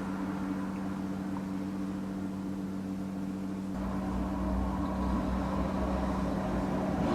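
A steady mechanical hum with two low held tones, joined about halfway through by a deeper rumble.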